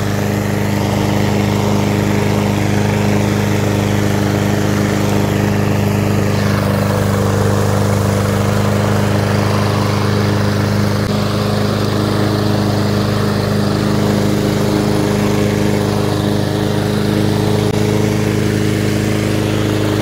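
Craftsman M260 walk-behind mower's 163cc Briggs & Stratton engine running steadily at a constant speed while it is pushed across and cutting grass.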